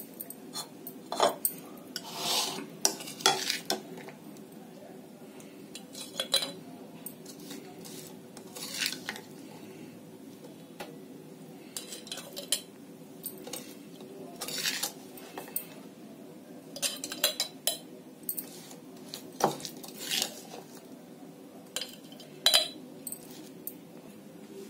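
A spoon scraping and clinking against a ceramic bowl and a glass jar as thick pickle is scooped from the bowl into the jar, in irregular clinks and short scrapes.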